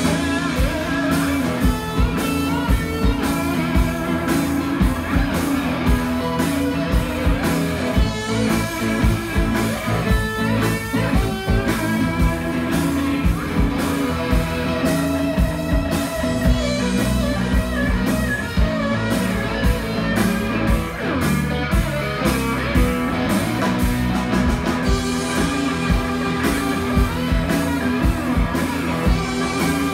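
A live blues band plays an instrumental passage on cigar box guitars and a cigar box bass, with a steady beat.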